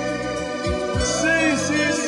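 Orchestra playing the accompaniment to a slow ballad, with long held chords and low bass notes, and a male crooner's voice in it for a moment.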